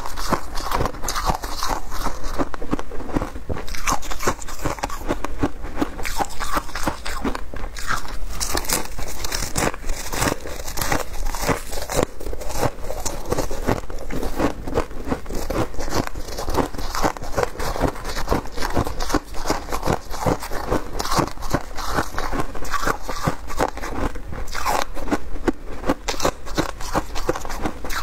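Frozen shaved ice crunching loudly and continuously as it is bitten and chewed close to a clip-on microphone, a dense run of sharp, irregular crunches.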